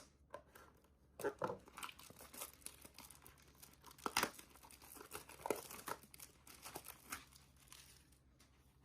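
Packaging of a trading-card blaster box crinkling and tearing as it is opened by hand: a run of irregular crackles and rips that dies down near the end.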